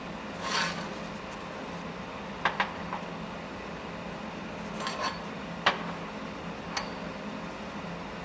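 Metal pieces clinking and tapping against each other, half a dozen sharp clinks at uneven intervals, over a steady low hum.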